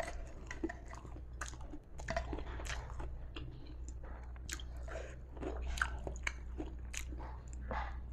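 A person chewing crispy batter-fried tempe gembus close to the microphone, with many sharp crunches and bites at an irregular pace.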